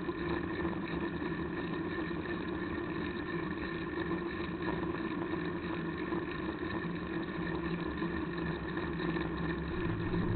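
Steady droning rumble of riding a bicycle, picked up by a bike-mounted camera's microphone: wind and road vibration, unchanging throughout.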